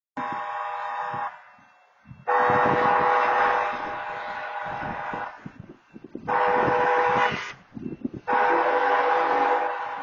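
Locomotive air horn sounding for a grade crossing: a short blast, a long one of about three seconds, a second short one, and a fourth blast that carries on, all on the same chord.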